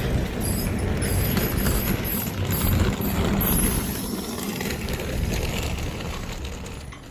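Road noise of a moving car, a steady low rumble that fades out near the end.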